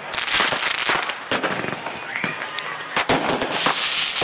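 Aerial fireworks going off: a rapid string of sharp bangs and pops, with stretches of crackling hiss near the start and again near the end.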